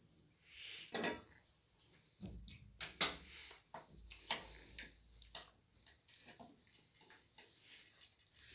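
Faint, scattered clinks and knocks of plates, a steel pot lid and spoons being handled, a few sharp ones about one, three and four seconds in.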